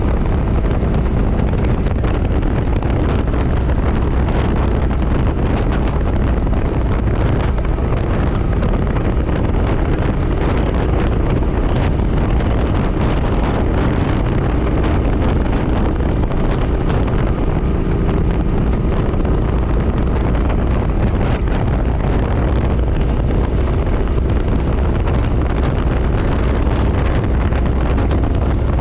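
Wind rushing over the microphone on a moving motorcycle, a Suzuki Boulevard C50, with its V-twin engine running steadily underneath at cruising speed.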